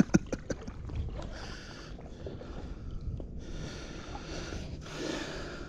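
Creek water sloshing around wading legs, in several separate swells about a second long each.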